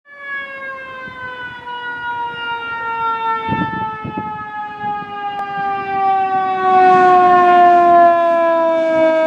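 Emergency vehicle siren sounding one long tone that slowly falls in pitch, growing louder as the vehicle approaches. Rushing road noise from the vehicle builds near the end.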